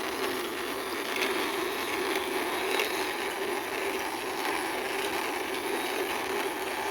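Wheels of a toy bus rolling steadily as it is pushed along by hand.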